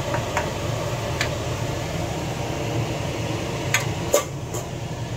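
A steady fan-like running noise, as of a kitchen extractor, with a few sharp clinks of a utensil against cookware as the chicken stir-fry is served; two clinks near the end are the loudest.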